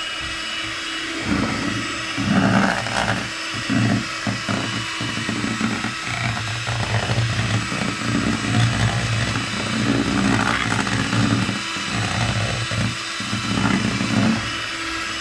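Electric hand mixer running steadily, its whisk beater frothing a thin liquid mixture in a bowl, with louder churning surges every few seconds as the beater is moved through it.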